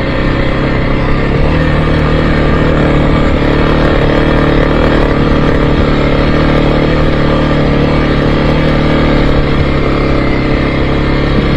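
Off-road vehicle's engine running steadily under load as it climbs a rutted dirt track, a constant even drone with road noise.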